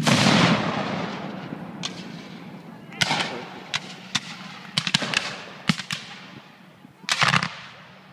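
A muzzle-loading field cannon fires at the very start, its boom rumbling away over about a second and a half. Scattered sharp cracks of black-powder musket fire follow, with a ragged cluster of several shots near the end.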